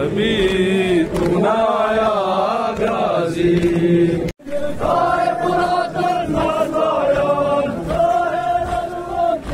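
Male mourners chanting together in a Muharram lamentation chant, drawn-out voiced lines rising and falling; the sound cuts out for an instant a little past four seconds, then the chant resumes.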